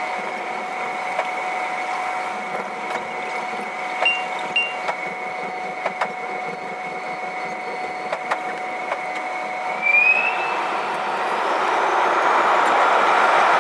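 Airbus A330-300 jet engines heard from inside the cabin, whining steadily while the plane taxis, with scattered clicks and knocks. About ten seconds in the whine rises and the engine roar swells as the engines spool up, the start of the takeoff roll.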